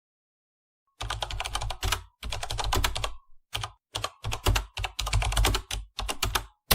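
Computer keyboard typing sound effect: rapid key clicks in bursts of a second or so with short pauses, starting about a second in and stopping sharply at the end.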